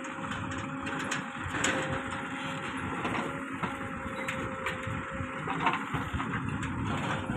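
Diesel engine of a JCB 3DX backhoe loader running steadily with a constant high whine, and scattered knocks and clanks from the machine at work.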